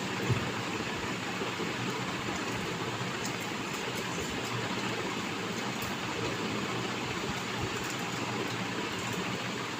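Close-miked chewing of food, heard as faint irregular mouth clicks under a steady hiss, with one slightly louder click near the start.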